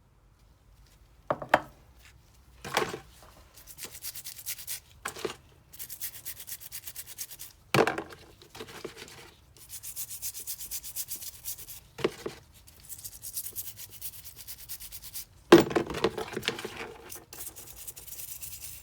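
Parts of a dismantled old adjustable wrench being scrubbed to clean off grime, in quick even back-and-forth strokes. The scrubbing comes in several runs, broken by a few sharp knocks as the metal parts are handled; the loudest knock comes about three quarters of the way through.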